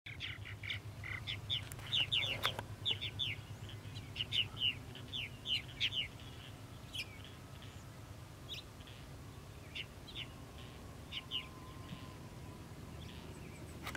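Purple martins calling: a quick run of short chirping notes, packed densely for the first six seconds, then sparser single notes.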